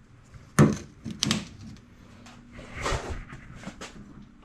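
A handful of short knocks and clicks from objects being handled, the loudest about half a second in, with more in quick succession just after and a few lighter ones later.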